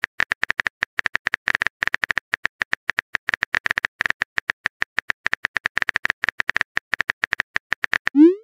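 Texting-app keyboard sound effect: rapid, irregular typing clicks, several a second, as a message is typed out. Near the end a short rising tone begins as the message is sent.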